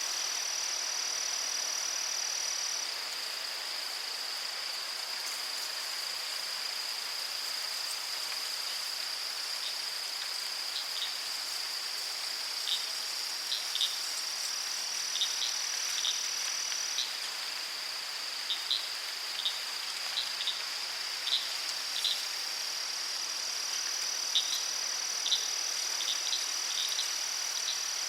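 Dense insect chorus: a steady high-pitched buzzing drone that shifts slightly in pitch a few times. Scattered short high chirps join in from about ten seconds in.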